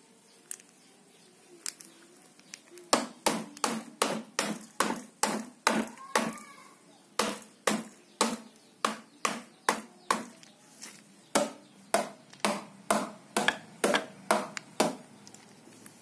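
A stone held in a small child's hand knocked repeatedly like a hammer, about three sharp knocks a second, in three runs with short pauses between.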